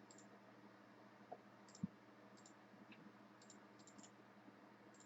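Near silence with a few faint, scattered clicks and one soft low thump just under two seconds in.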